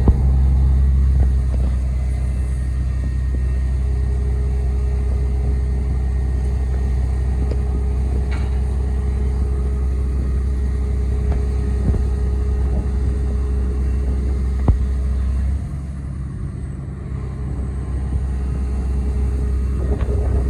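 Hitachi ZX870LCH-3 excavator's Isuzu diesel engine running steadily, with a low rumble and a steady higher tone over it. About three-quarters of the way through the sound eases off, then builds back up near the end.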